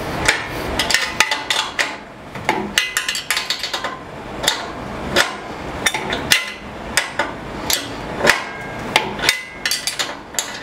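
Wrench clinking and clicking against the bolts of an aluminium fence rail as they are tightened, in quick irregular runs of sharp metal clicks, some briefly ringing.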